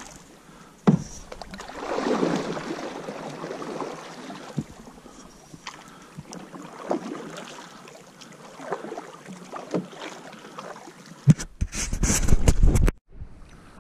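Canoe paddles dipping and pulling through calm water, a stroke every second or so, with a sharp knock about a second in. Near the end, loud rubbing and knocking from the camera being handled, which cuts off suddenly.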